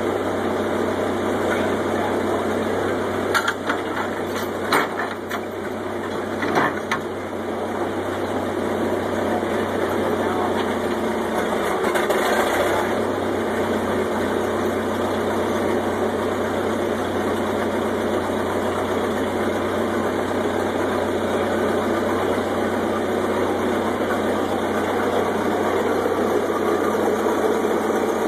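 Hanson cable shovel's McCormick-Deering engine running steadily under load as the shovel is worked through a dig, with a few sharp knocks from the machinery about three to seven seconds in.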